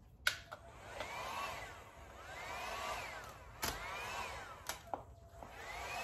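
Handheld heat gun's fan motor whining up and down in pitch three times, then spinning up and staying on near the end, with a few sharp clicks in between.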